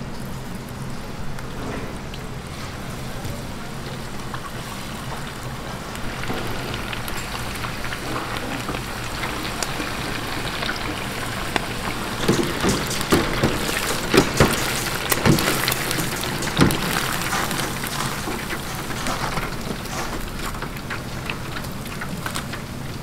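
Batter-coated pork strips frying in a deep fryer's hot oil: a steady sizzle that grows denser about six seconds in, with a run of sharp crackles and knocks around the middle.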